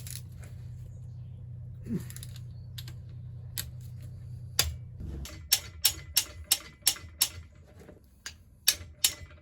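Socket ratchet clicking as it is swung back between pulls, loosening the tight connecting-rod cap nuts on a Golf GTI engine. After a few scattered knocks and a steady low hum, about halfway through come two runs of sharp clicks at about three a second.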